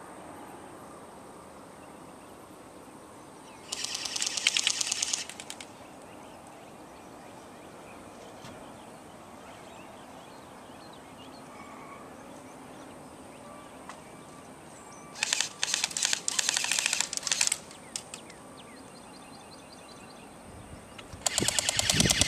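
Airsoft guns firing full-auto bursts of rapid clicking shots. There is a short burst about four seconds in, a longer broken one around sixteen seconds, and another that starts near the end.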